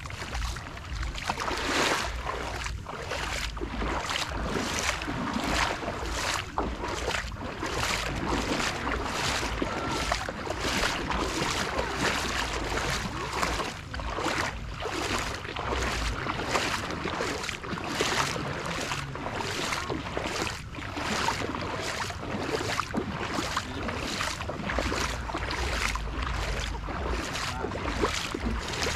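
Shallow seawater splashing and lapping, in an irregular run of splashes about one to two a second, with wind rumbling on the microphone.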